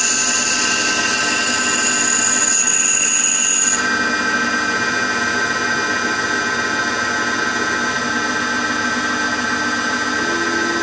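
CNC-converted Optimum 180x300 mini lathe running with a steady mechanical whine while turning a white plastic workpiece. A higher-pitched whine joins in over the first few seconds and stops suddenly about four seconds in.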